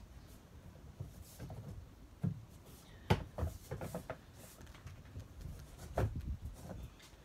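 Click-together flooring planks being pressed and fitted into place by hand, giving a few scattered knocks and clicks. The sharpest come about three seconds in and about six seconds in.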